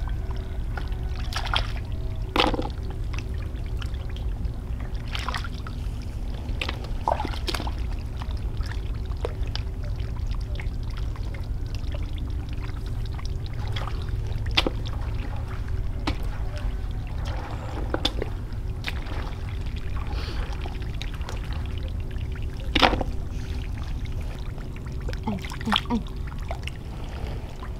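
Water splashing and sloshing at irregular moments over a steady low rumble.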